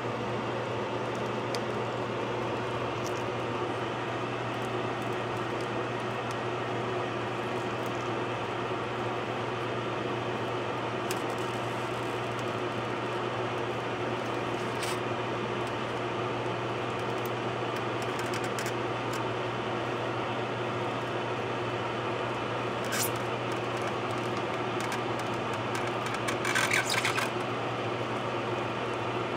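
A steady motor hum, like a fan or air-conditioning unit, runs at an even level. Over it come a few short crackles and rustles from gloved hands working carbon-fibre cloth, the loudest near the end.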